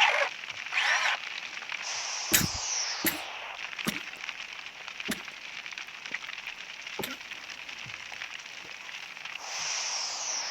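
Sound effects of a forest fire in an animated cartoon: a steady crackling hiss broken by several sharp cracks, with a falling whoosh near the end.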